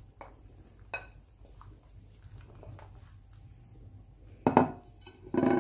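A spoon scraping chopped spring onions off a plate into a stainless-steel pot, then a wooden spoon stirring the soup, with light clinks and two louder clatters against the pot near the end.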